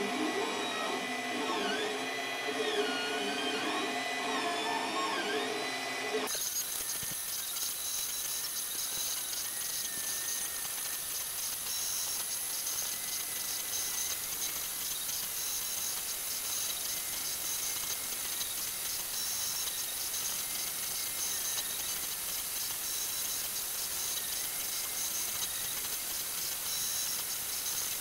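Ender 3 3D printer running a print: its stepper motors whine in shifting pitches as the print head moves, over the steady hiss of its cooling fans. About six seconds in the sound changes abruptly, the whine dropping back under a steadier hiss.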